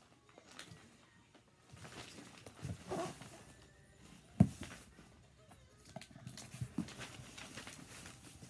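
Cardboard box being lifted, turned and shifted among wrapping paper: scattered bumps and paper rustles, with one sharp thump about four and a half seconds in.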